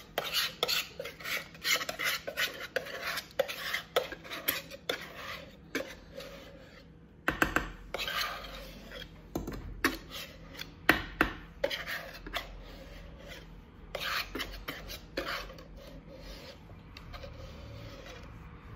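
A wire whisk scraping and clicking against a plastic mixing bowl as thick chocolate cake batter is scraped out into a baking pan: irregular scrapes and clicks.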